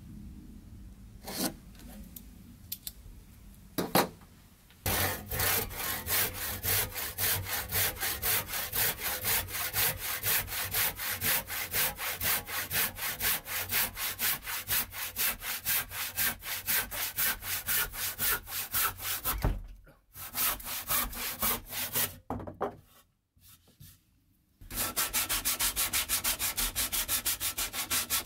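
A hand saw cutting through a softwood board with quick, even back-and-forth strokes. It starts about five seconds in after a few light knocks, pauses twice past the middle, and then resumes at a faster, very regular pace near the end.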